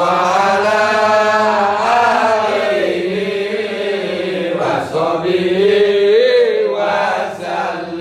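A solo voice chanting in long, wavering held notes that slide up and down over a steady low tone.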